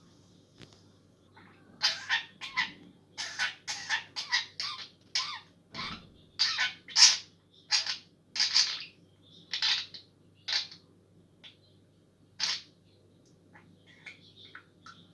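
Budgerigar giving a run of short, sharp calls, about fifteen in ten seconds, then falling quiet with only faint chirps near the end.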